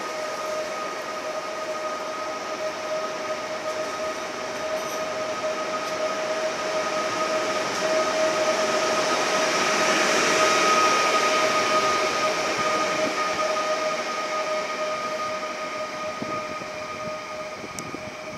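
Pesa Elf EN76 electric multiple unit rolling past along the platform as it departs. Its running noise swells to a peak about ten seconds in as the end of the train goes by, then fades as it moves away. A steady two-note whine runs under it throughout.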